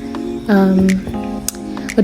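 Background music with a guitar and held pitched notes.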